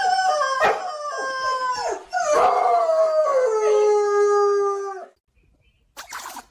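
Dog howling: long drawn-out howls that slide down in pitch, in about three phrases, stopping abruptly about five seconds in.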